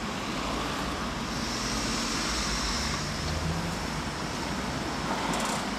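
Steady street traffic noise, with vehicles running at a constant level.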